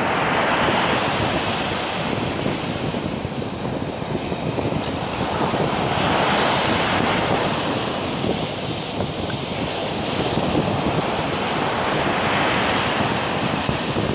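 Black Sea surf breaking on a sandy beach, the wash swelling and easing in three surges about six seconds apart, with wind buffeting the microphone.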